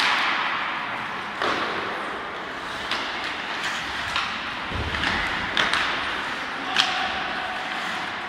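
Ice hockey play: a steady scraping hiss of skates on the ice, with sharp cracks of sticks and puck about half a dozen times and a dull thud about five seconds in.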